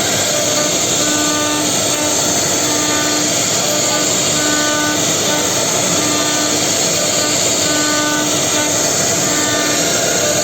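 Four-head CNC router spindles milling wood, a loud steady cutting noise, with short tones at several pitches coming and going.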